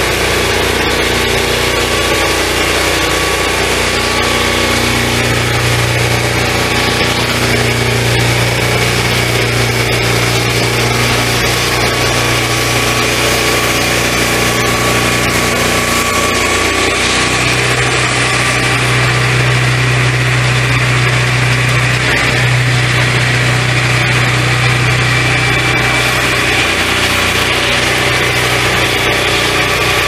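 Petrol engine of a 12-inch swingblade sawmill running steadily as its circular blade saws along a log.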